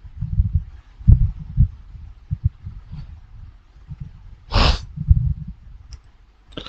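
A person breathing close to the microphone, with low puffs of breath on it and one louder breath about four and a half seconds in. A few faint mouse clicks.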